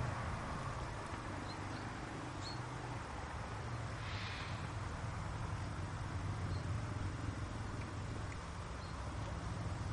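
Haflinger horse moving under a rider on grass: soft hoofbeats over a steady low rumble, with a few short high chirps and a brief breathy hiss about four seconds in.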